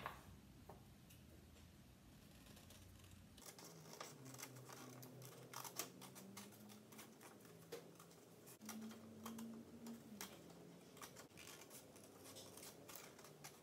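Scissors snipping through construction paper: faint, irregular snips as a fish shape is cut out, thickening from about three seconds in.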